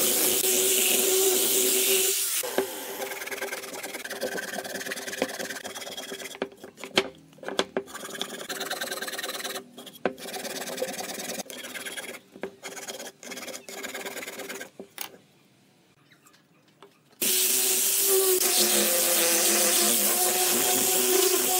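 Angle grinder with a sanding disc running steadily as it sands pine, stopping about two seconds in. Quieter rubbing and scraping on the wood follows, with scattered clicks and knocks and a brief near-silent pause. The grinder starts again near the end, sanding another pine board.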